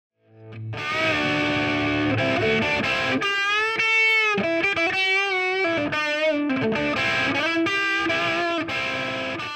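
Intro music: a distorted electric guitar playing sustained lead notes with wide vibrato, fading in over the first second.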